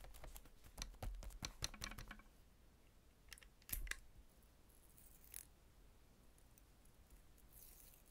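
Hand-held embossing label maker clicking: a quick run of sharp clicks in the first couple of seconds, then a louder clack just before the middle. Faint rustles of handling the plastic tape follow.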